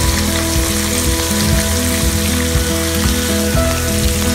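Flour-dusted tamban (small bait fish) sizzling as they shallow-fry in hot oil in a non-stick pan, a steady hiss. Background music with held notes plays over it.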